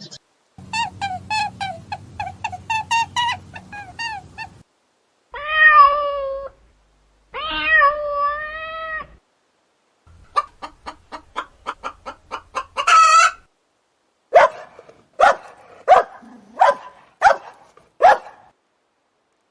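A string of farm animal calls in separate clips: a run of quick repeated calls, then two long cat meows, then a burst of rapid calls ending in a high screech, and six short sharp calls evenly spaced.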